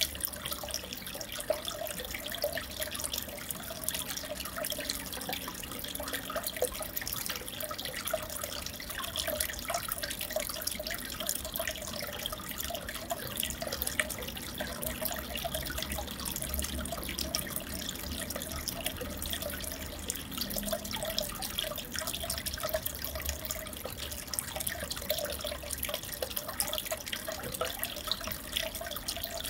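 Water in a freshwater aquarium bubbling and trickling steadily, full of small drip-like pops, over a low hum.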